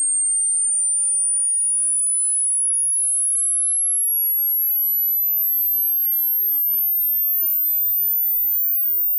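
A pure sine-wave test tone gliding steadily upward in pitch at a constant level, from about 9,000 Hz to about 15,000 Hz. This is the high-treble part of a 20 Hz–20 kHz hearing and speaker test sweep, played in the right channel only.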